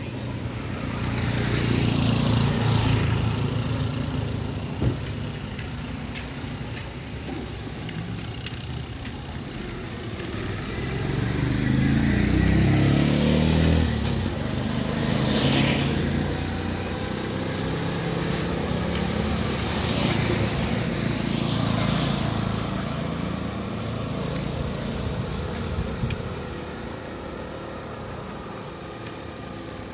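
Street traffic: several motor vehicles pass one after another, each engine sound swelling and fading as it goes by.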